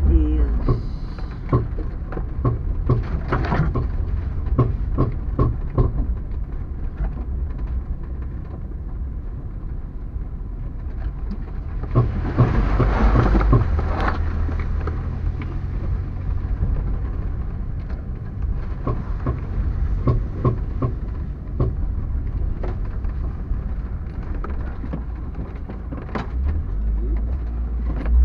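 Vehicle driving slowly over a rutted dirt road, heard from inside the cabin: a steady low engine and road rumble with frequent knocks and rattles as the body jolts over the ruts. About twelve seconds in there is a louder rush of noise for a couple of seconds.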